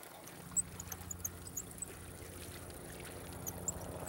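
Fishing reel being cranked steadily, a low even whirring, as a hooked crucian carp is reeled in toward the bank.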